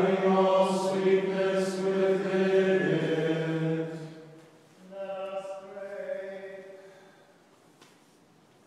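Men's voices chanting a hymn in unison, in long held notes: one phrase that steps down in pitch about three seconds in, then a softer second phrase, then a pause in which the sound dies away to near silence.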